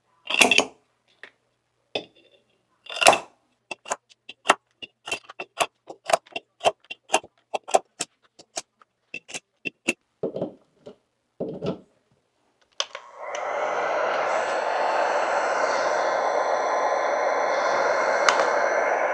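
A wick trimmer snipping the wooden wicks of candles in metal tins, one sharp click after another, with a couple of duller knocks. About thirteen seconds in, a corded heat gun switches on and blows steadily over the candle tops to melt and smooth the wax.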